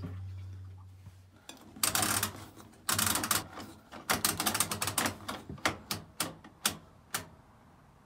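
A low hum fading away in the first second, then two short bursts of clattering and a run of separate sharp mechanical clicks, about two a second, that thin out towards the end.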